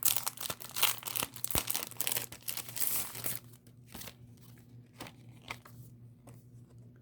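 Packaging being torn open and crinkled by hand to get at a set of embroidered patches: a dense run of crinkling and tearing for about three seconds, then only a few scattered rustles and ticks.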